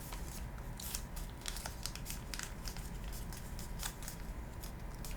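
A sheet of kami origami paper being folded and creased by hand: soft crinkling with scattered short rustles and clicks.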